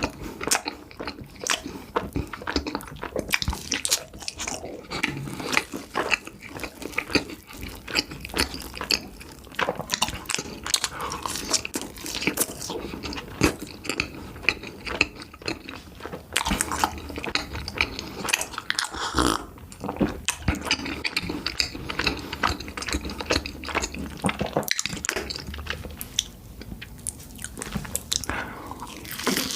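Close-miked biting and chewing of yakgwa, Korean deep-fried honey-syrup cookies: a steady run of sharp little clicks and smacks from the mouth.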